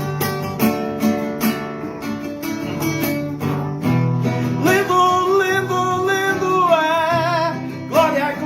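Acoustic guitar (violão) strummed in chords. About halfway through, a voice joins, singing long held notes with vibrato.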